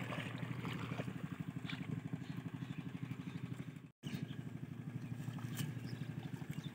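Small single-cylinder diesel engine driving an irrigation water pump, running steadily with a rapid, even thudding beat. The sound breaks off for an instant about four seconds in.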